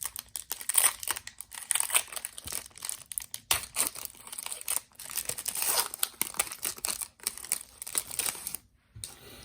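A trading-card pack wrapper being torn open and crinkled in the hands: irregular crackling and tearing that stops shortly before the end.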